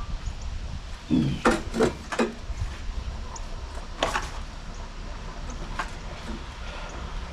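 A quick run of four sharp knocks and clicks about a second in, the first with a low thud, then two single sharp clicks later on.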